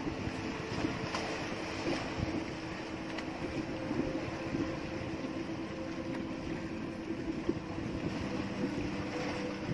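Boat engine running steadily, with occasional light knocks.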